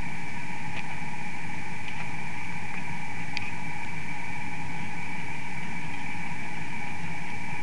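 Steady hum and hiss with two faint whining tones, broken by a few faint ticks.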